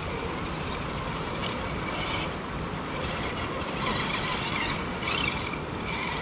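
Traxxas TRX-6 RC crawler's stock electric motor and gears whining in short spurts as it crawls over rock, over a steady rushing background noise.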